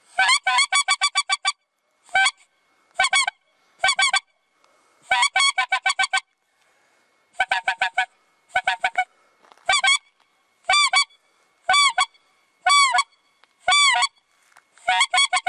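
A mouth-blown goose call sounded in about a dozen short runs of quick, high honking notes with brief pauses between them.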